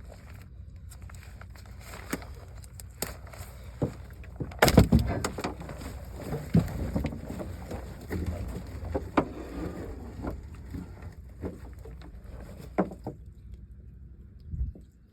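Knocks, thumps and clatter on a fishing boat while nets are being worked, loudest in a burst about five seconds in, over a steady low rumble.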